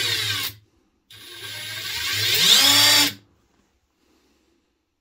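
Parkside Performance PDSSAP 20-Li B2 cordless impact driver with brushless motor spinning a bit with no load. One run stops about half a second in. A second run starts about a second in and whines up in pitch as it speeds up, then stops about three seconds in.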